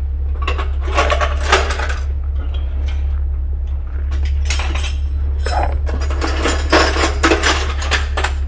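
Hand tools and metal parts clinking and rattling in three bursts, over a steady low hum.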